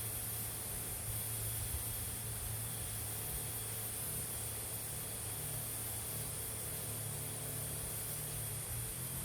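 Crop sprayer hissing steadily while spraying, over a steady low hum.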